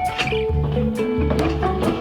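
Background pop song in an instrumental passage between sung lines: held notes over a moving bass line, with a steady beat.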